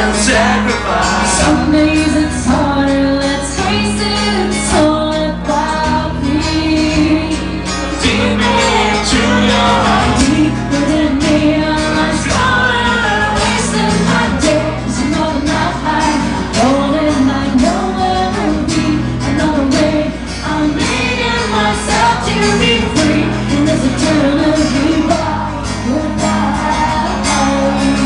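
Live acoustic rock performance: two acoustic guitars accompany a woman and a man singing into microphones.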